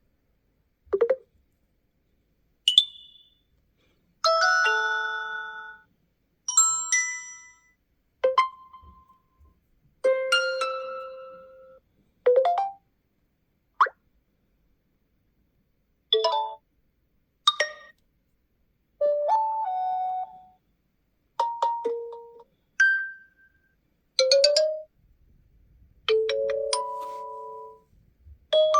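OnePlus 11 smartphone's built-in preset tones played one after another: about sixteen short, bright chimes and jingles of one to a few notes each, every one fading out quickly and followed by a brief silence before the next.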